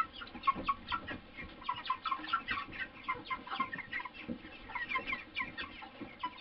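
A flock of white broiler chickens calling all at once: a steady stream of short, high notes, many falling in pitch, overlapping from several birds.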